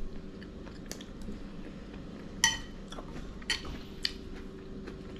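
Metal spoon clinking against a dish while eating: about four light clinks, the sharpest about halfway through.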